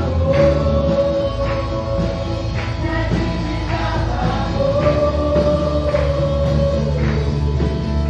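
Gospel worship music: a band with singing, long held sung notes over a steady bass line and drum hits.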